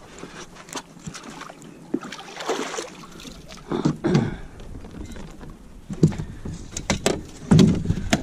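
Irregular knocks and thumps on a fishing boat, with a short rushing noise about two and a half seconds in and a cluster of heavier thumps near the end.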